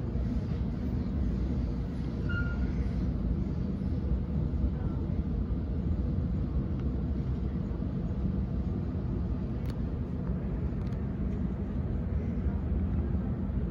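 Sydney Trains Waratah A set electric train running at steady speed, heard from inside the carriage: an even, low rumble of wheels and running gear on the track, with a faint steady hum.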